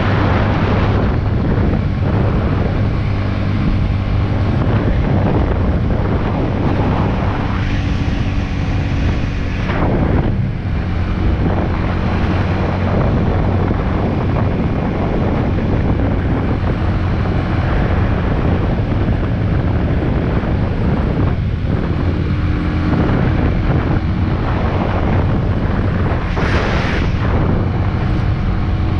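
Big Boy SuperLight 200cc motorcycle engine running at road speed under heavy wind buffeting on the camera microphone. The engine note eases off briefly about ten seconds in, and a louder gust of wind hiss comes near the end.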